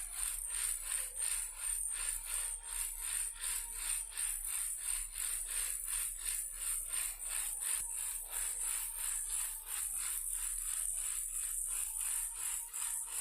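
Toy car shaken as a baby rattle, rattling in a steady rhythm of about three to four shakes a second, over a steady high hiss.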